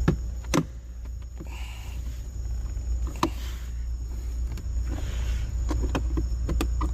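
Scattered clicks, taps and short scrapes of tools and hands working on plastic dashboard trim panels and screws, over a steady low rumble.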